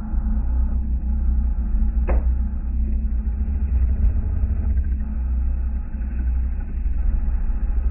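Steady low rumble of a running vehicle engine, with one sharp click about two seconds in.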